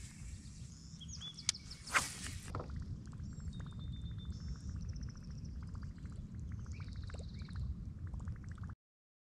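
Outdoor ambience on a lake: a steady low rumble of wind on the microphone, with a few sharp knocks in the first two seconds and birds calling faintly in the background. The sound cuts off suddenly near the end.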